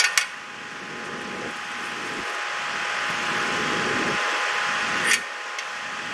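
Steady rushing hiss with a faint steady hum tone, broken by sharp clicks right at the start and again about five seconds in.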